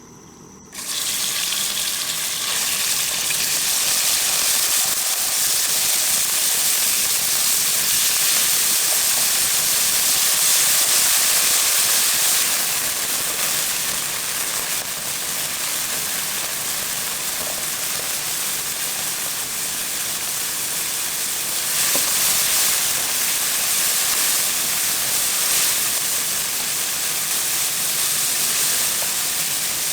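Food frying in a hot pan, a steady sizzle that starts suddenly about a second in and holds, swelling slightly now and then.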